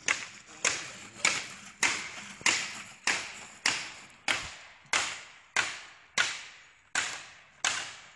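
Hammer blows on the wooden boards of a raised roll-in platform, a steady run of sharp knocks a little under two a second, each ringing briefly, as a board is being hammered loose. The knocking stops near the end.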